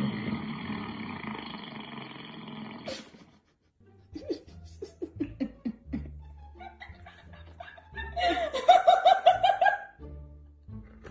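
A fart sound effect played through an Amazon Echo Dot smart speaker: a long, raspy noise lasting about three seconds that stops abruptly. After a short pause come short musical blips, then a loud burst of rapid, rhythmic laughter about eight seconds in.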